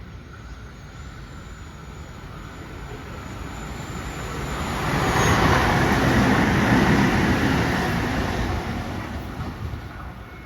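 A train passing at speed: rumble and rail noise that build to a loud peak about halfway through, then fade away.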